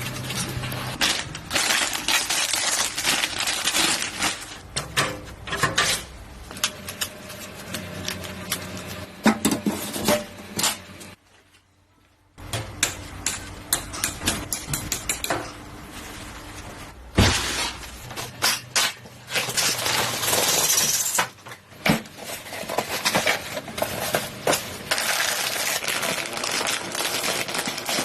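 Clicks, clinks and rattles of computer parts, screws and case panels being handled and fitted. The handling stops for about a second around eleven seconds in.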